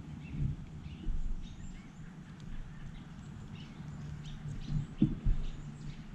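Faint scattered bird chirps over a steady low hum, with a few dull knocks from handling the multitool as its other side is opened, about a second in and twice near the end.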